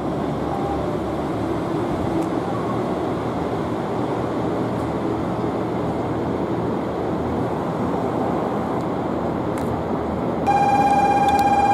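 A train standing at a station platform gives a steady rush of noise. About ten seconds in, a loud, steady buzzing tone starts and holds without a break.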